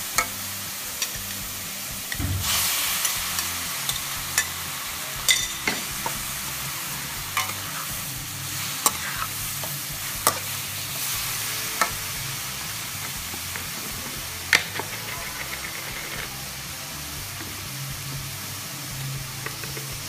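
A metal spatula scraping and clinking against a steel wok as pork, broccoli and carrots are stir-fried, over a steady sizzle of hot oil. A louder surge of sizzling comes about two seconds in, and the sizzle eases a little toward the end.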